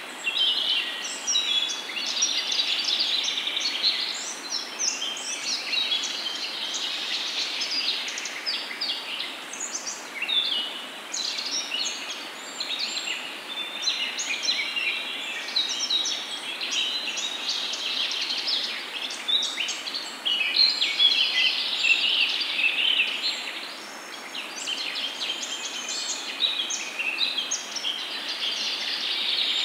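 Hot oil sizzling and crackling in a frying pan as peyaju (onion and lentil fritters) deep-fry, with a steady stream of small, high crackles.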